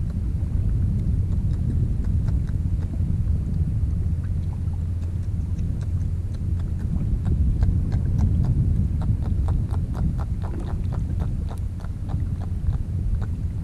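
Low wind rumble on the microphone, with a run of small, quick clicks and ticks from handling fishing tackle by hand, growing denser over the second half.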